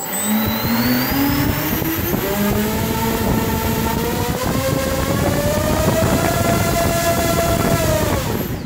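Four brushless quadcopter motors (three 2207 2100 kV and one 2206 2250 kV) spinning King Kong 6040 propellers, throttled up to full: a whine over loud propeller wash that rises steadily in pitch for about six seconds, holds, then drops as the throttle is cut near the end. This is a full-throttle peak-power pull drawing over 90 A from a 4S LiHV pack.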